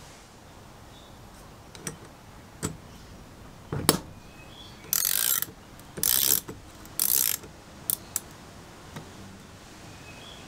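Socket ratchet wrench clicking as it is worked back and forth to undo a rusty nut on an old brass blowtorch's burner. There are three loud half-second runs of ratcheting about a second apart, with a few metal knocks before and two clicks after.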